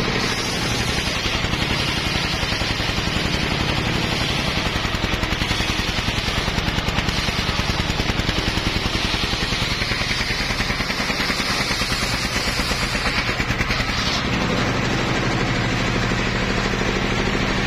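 Belt-driven homemade circular sawmill ripping a log: the stationary engine runs steadily under load with a rapid, even pulsing, and the big circular blade hisses through the wood.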